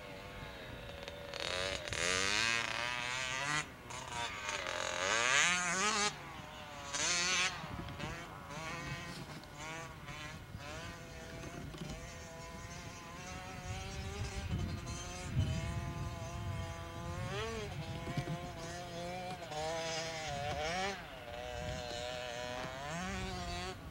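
Dirt bike engine heard at a distance, revving up and down as it rides the track, its pitch climbing and dropping again and again through gear changes. A few short bursts of hiss come in the first several seconds.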